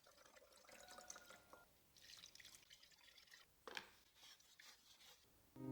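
Near silence, with a few faint light ticks about a second in and again a little past the middle.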